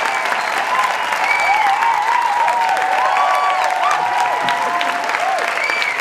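Large audience applauding steadily, a dense, even clapping that goes on throughout.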